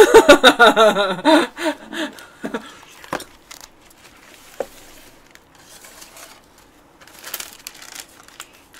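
A woman's voice for the first two seconds, then light taps as a cardboard macaron box is handled, and near the end a paper rustle as the paper liner sheet over the macarons is lifted out.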